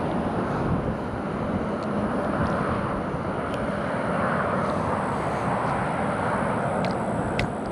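Steady rush of highway traffic, swelling a little about four seconds in, with a few light ticks over it.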